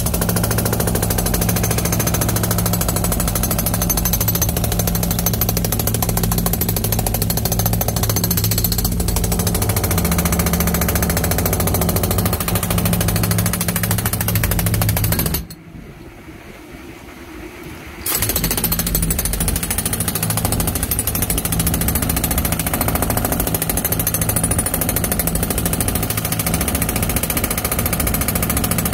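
Jackhammer breaking out hardened concrete inside a concrete mixer truck's drum, hammering continuously. It stops for a couple of seconds about halfway through, then starts again.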